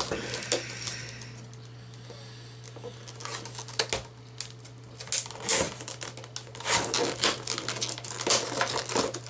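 Plastic clamshell packaging crinkling, crackling and snapping as it is bent and pried apart by hand, in a run of sharp clicks and cracks. It goes quieter for a second or two after the start, then gets busier.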